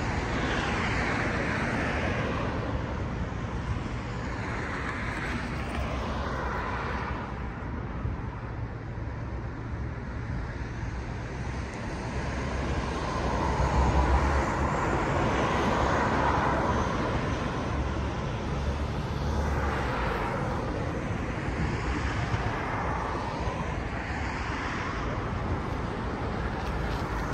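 Road traffic: vehicles passing one after another, each swelling up and fading away, over a steady low rumble, with the loudest pass about halfway through.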